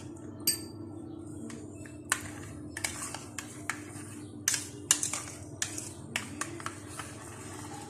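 Spoon stirring yogurt in a bowl, clicking against the bowl's side at an uneven pace.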